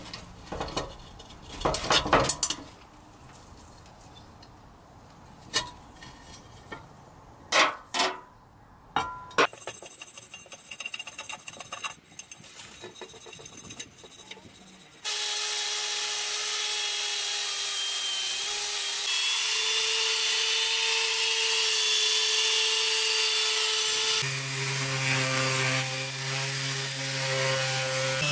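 Knocks and clatter as the rusty cast iron kettle and its lid are handled, then a hand wire brush scrubbing rust off the cast iron in quick scratchy strokes. From about halfway in, a handheld power tool with an abrasive wheel grinds rust off the kettle's lid and body as a steady whining grind, its pitch shifting a couple of times.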